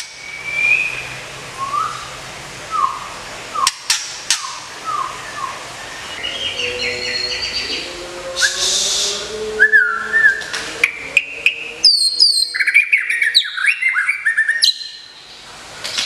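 White-rumped shama singing: a few separate whistled notes, then from about six seconds a fast, varied song of whistles, high trills and falling sweeps with sharp clicks mixed in.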